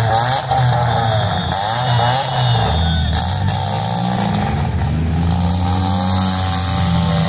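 Demolition derby cars' engines revving up and down, their pitch rising and falling again every second or so, with more than one engine running at once.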